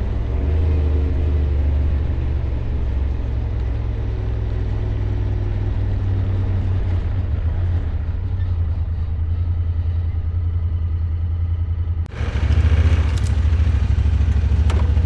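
Side-by-side UTV engine running steadily under way, a low droning rumble. About twelve seconds in the sound drops out for an instant and comes back louder.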